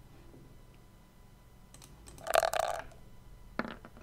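A few computer clicks, then about two seconds in a short rattling clatter from a virtual tabletop's 3D dice rolling a d20.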